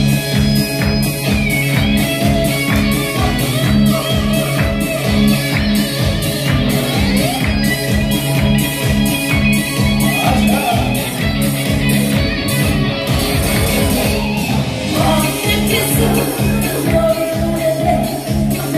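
A woman singing a Korean pop song live into a handheld microphone over a recorded backing track with a steady beat and pulsing bass, played through a PA system.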